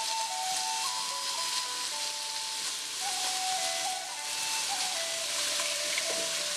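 Thin strips of marinated beef sirloin sizzling steadily in a very hot wok as they are stirred with a wooden spatula. Soft background music with held, stepping notes plays underneath.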